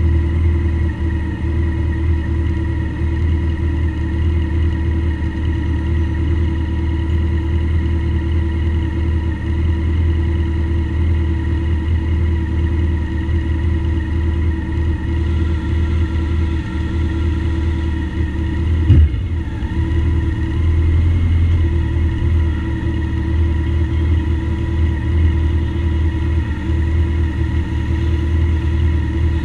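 Motorcycle engine idling steadily at an even pitch, with one sharp knock about two-thirds of the way through.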